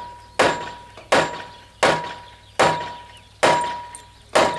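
Steady series of hammer blows on metal, about one every three-quarters of a second, six in all, each leaving a ringing metallic tone. A part on a DON-1500B combine's feeder house is being knocked gently home.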